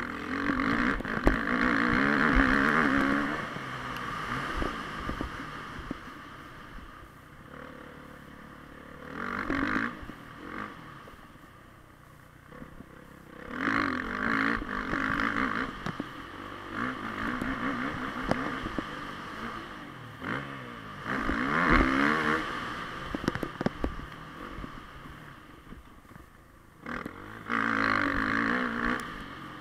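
Dirt bike engine on a motocross track, revving hard in surges of one to three seconds as it accelerates, then backing off between them, about five times. Sharp knocks from the bike bouncing over the rough ground come through as well.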